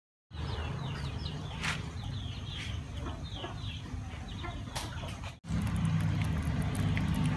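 Birds calling in the background: repeated short, falling chirps over a low hum, with a couple of sharp clicks. About five seconds in the sound cuts abruptly to a louder, steady low rumble with faint rapid ticking.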